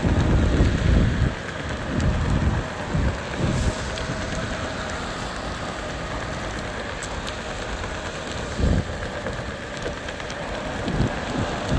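Steady rolling noise of an electric skateboard riding on soft 3D-printed TPU wheels, with wind buffeting the microphone in low rumbling gusts, heaviest at the start and again near the end. A faint steady whine runs underneath.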